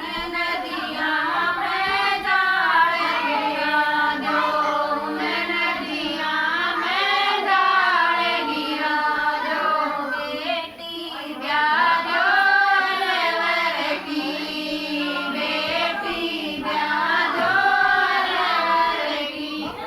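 Several voices singing together a Haryanvi banna, a folk wedding song for the groom, in phrases of a few seconds each.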